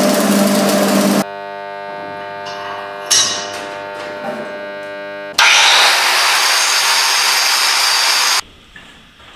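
Arc welding on a steel bar, crackling over the steady hum of the welding transformer, which hums on alone after the arc stops. A single clank about three seconds in. From about five seconds in, an angle grinder grinds the steel weld for about three seconds and stops abruptly.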